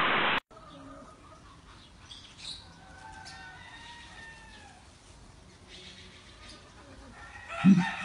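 A loud rushing noise cuts off abruptly half a second in. Then come faint bird calls with gliding notes, and near the end a run of loud, low call notes, about two a second.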